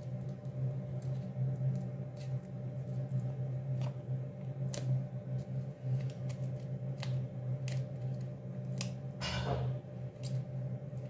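Small scissors snipping through a plastic sachet: a string of irregular, separate snips, with a short rustle about nine seconds in. A steady low hum runs underneath.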